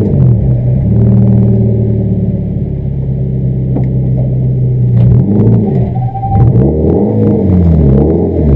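Toyota GT86 competition car's flat-four engine heard from inside the cabin, running steadily at low revs, then its revs rising and falling several times over the last few seconds, with light clicks and rattles over it.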